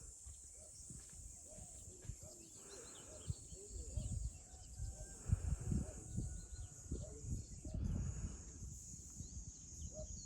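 Outdoor countryside ambience: a steady high-pitched hiss like insects, scattered faint chirps, and wind gusting on the microphone in irregular low rumbles.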